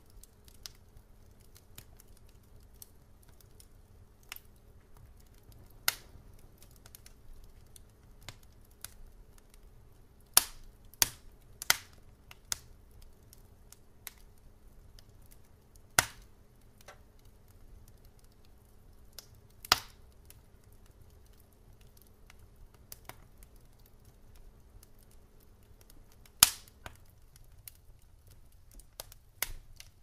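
Wood logs burning in a fireplace, crackling irregularly with a handful of loud, sharp pops, three of them close together about a third of the way in, over a faint low rumble of the flames.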